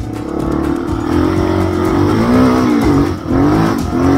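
Honda XR250's single-cylinder four-stroke engine running under load as the dirt bike is ridden, the revs rising and falling repeatedly with a brief drop a little after three seconds in.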